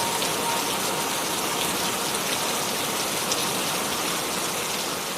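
Steady rainfall, an even hiss with scattered sharp drop ticks. A held tone from soft music dies away about half a second in, and the rain eases slightly near the end.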